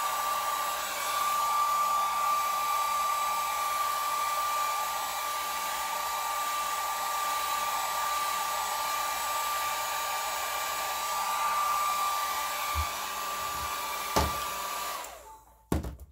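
Handheld hair dryer blowing steadily with a high motor whine, drying wet paint on a canvas. Near the end there is a click and the dryer cuts off and dies away, followed by a few light knocks.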